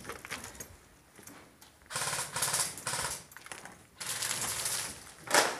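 Airsoft electric rifles firing two rapid full-auto bursts, each about a second long, a rattling string of quick clicks, the first about two seconds in and the second about four seconds in. A louder sharp crack follows near the end.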